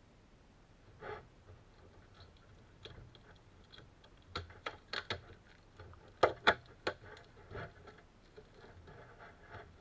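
Clear plastic wrap crinkling and crackling as it is peeled off a cardboard box. It comes as scattered sharp crackles, loudest in a cluster about six to seven seconds in.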